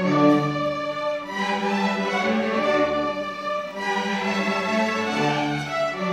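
School string orchestra playing: violins, cellos and basses bowing held notes in a moving melody.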